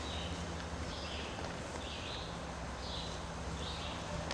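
Short, high-pitched raspy calls from a wild animal, repeating a little more than once a second, over a steady low hum.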